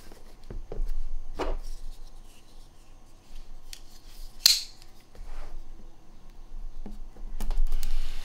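Scissors snipping and piercing the clear plastic shrink-wrap on a cardboard phone box, with the box being handled; the sharpest snip comes about four and a half seconds in. Near the end the loosened wrap crinkles as it is worked off the box.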